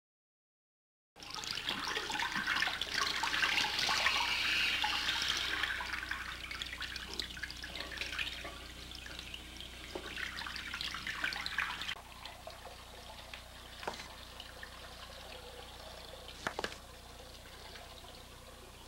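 Water running from a tap into a porcelain washbasin as hands wash in it, starting about a second in and loudest over the first few seconds. It drops away sharply about twelve seconds in, leaving a faint trickle and a few light knocks.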